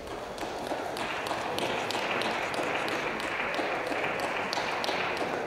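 Spectators applauding a point in a table tennis hall: a dense patter of many hands clapping that swells about a second in and stops near the end.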